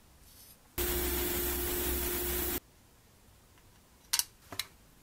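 A steady hiss of escaping air lasting nearly two seconds, starting and stopping abruptly, with a low hum under it. About four seconds in, two light clicks of metal tweezers against the model's plastic parts.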